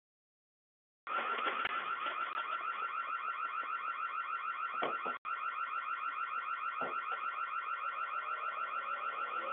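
An electronic alarm sounding a fast-pulsing high tone that starts about a second in, drops out for an instant about halfway, and then carries on unchanged.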